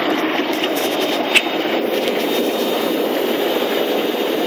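Small dog jacuzzi tub running, its jets churning the water into bubbles with a steady rushing noise. One short click about a second and a half in.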